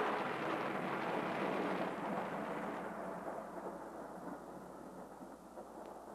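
Thunder, most likely a recorded sound effect, rolling on after a sudden crash and fading slowly. Its brighter top end dies away about three seconds in, leaving a lower rumble.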